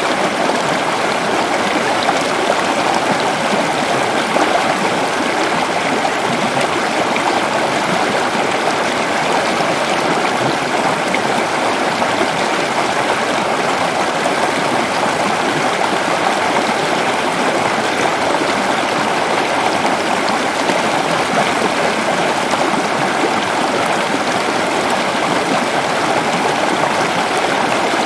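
Waterfall splashing and rushing steadily into water, an even, unbroken loud rush.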